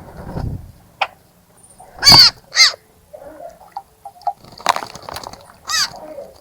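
A bird calling loudly: two calls in quick succession about two seconds in, then two more near the end. A short low rumble at the start and a single sharp click about a second in.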